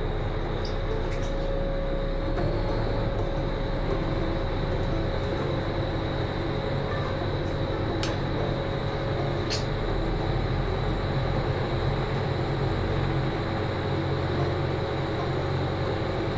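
Boat engine running steadily with a low hum and a faint steady whine, with a couple of faint ticks partway through.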